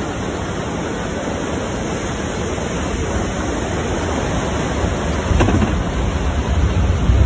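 Water rushing along a ride flume under a moving water-ride boat: a steady, loud rushing hiss, with a deeper rumble building over the last couple of seconds.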